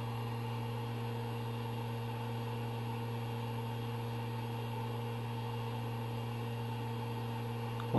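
Steady low electrical hum with a faint hiss from a powered-on 3D printer's electronics, unchanging throughout.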